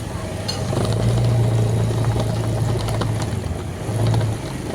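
Motor vehicle engine running steadily with a low hum that swells about a second in and again near the end.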